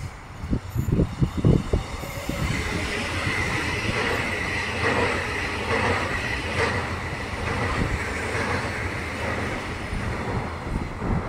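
A PKP Intercity electric multiple-unit train passing close by: a steady wheel-on-rail rush with a high whine, and a few clacks of its wheels over the rail joints in the middle of the pass. Low buffeting thumps come first, in the opening two seconds.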